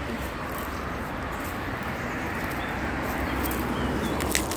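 Steady rustling noise with a low wind rumble on the microphone, as a hand works among grass and bamboo shoots. Two short, sharp clicks come near the end.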